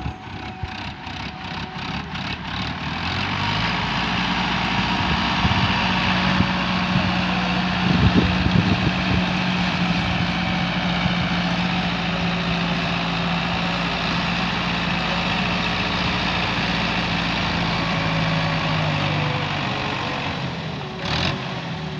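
Diesel farm tractor running under load while pulling a rotavator through dry soil: a steady engine note under the rotavator's churning. It grows louder over the first few seconds as the tractor comes closer, then holds steady, with a few brief knocks about eight seconds in.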